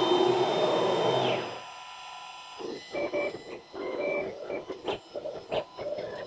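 CNC router's spindle running with a steady whine, cutting off about a second and a half in. From about two and a half seconds in come choppy, sped-up machine sounds: short whirs, chirps and clicks of the spindle and the stepper-driven axes moving.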